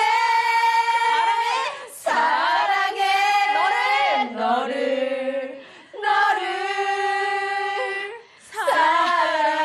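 A group of women singing a slow love song together, with the line 'I love you' sung in Korean. The voices hold long notes in phrases of about two seconds each, with short breaths between them and one lower phrase near the middle.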